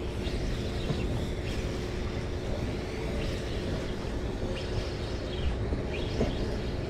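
Steady low machinery hum and rumble from a moored cargo ship, with a constant droning tone and a few faint high chirps over it.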